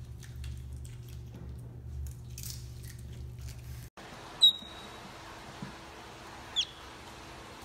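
An otter chewing fish: faint wet crunches and clicks over a low hum. This cuts off sharply, and then come two short, sharp high-pitched chirps, the second sweeping up and back down.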